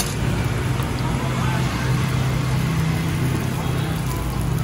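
Bánh xèo frying in small pans of oil over gas burners, a steady sizzle, with the low hum of motor traffic passing on the street.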